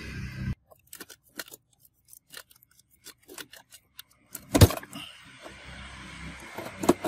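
Small plastic and metal clicks and rattles of computer parts being handled, then one sharp, loud click about four and a half seconds in as the 24-pin ATX power connector is pulled out of the motherboard, with a couple more clicks near the end.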